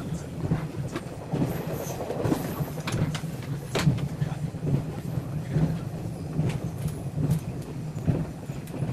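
Diesel train running, heard from inside a passenger carriage: a steady low drone with irregular clicks and knocks from the wheels over the rail joints.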